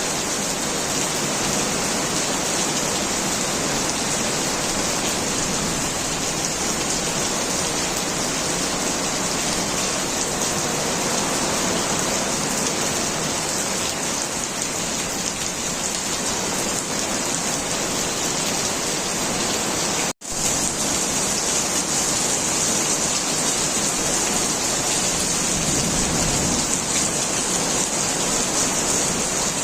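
Heavy rain falling steadily, a dense even hiss of rain on surfaces. The sound drops out for an instant about two-thirds of the way through, then the rain carries on unchanged.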